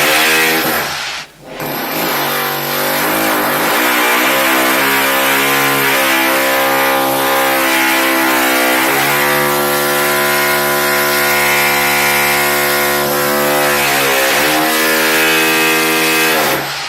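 Electric drill motor whining at varying trigger speed. It cuts out briefly about a second in, winds up and runs steady, steps up in pitch about halfway through, then winds down near the end.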